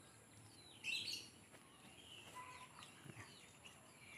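Birds chirping faintly: short high calls and quick falling whistles, the loudest burst of calls about a second in.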